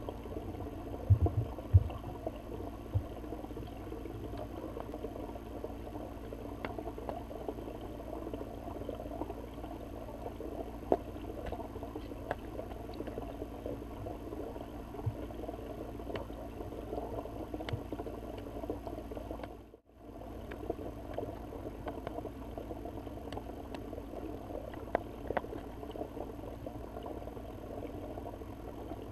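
Underwater ambience heard through a submerged camera housing: a steady murky hiss with scattered small ticks and clicks. A few low thumps come about a second in, and the sound drops out briefly about two-thirds of the way through.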